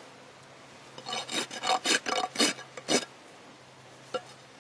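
A hoof rasp filing a horse's hoof wall in about eight quick strokes over two seconds, the last finishing passes of a barefoot trim, followed by a single short tap near the end.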